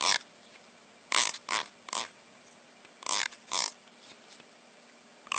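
An animal making short, noisy huffing sounds, about eight in all, several in quick pairs.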